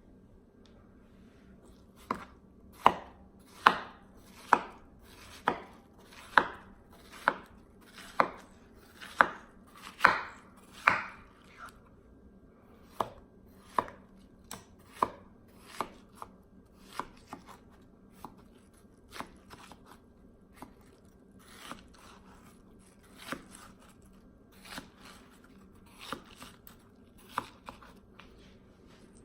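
A knife chopping watermelon against a cutting board: a run of sharp chops about one a second, loudest for the first several seconds, then softer and more spaced out.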